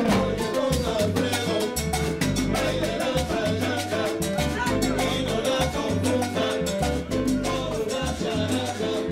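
Live salsa band playing, with trombone and violin over a repeating bass line and steady percussion.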